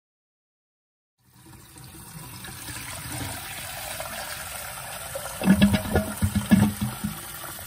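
Kitchen faucet running a full stream into a metal pot in a stainless steel sink, the pot filling with water. The sound starts after about a second of silence and grows steadily louder. About five and a half seconds in it turns louder and uneven for a second or two.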